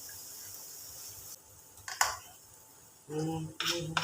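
Mango and spices frying in a non-stick pan, a faint steady sizzle that stops about a second and a half in. A utensil knocks sharply on the pan twice about two seconds in. Near the end a person hums briefly.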